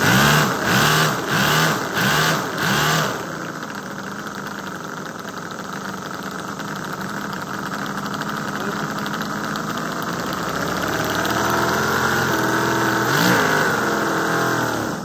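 Toyan X-Power V8 four-stroke nitro model engine revving in quick throttle blips, about two a second, for the first three seconds, then running steadily. Near the end its speed rises as it runs out of fuel, and it cuts out suddenly.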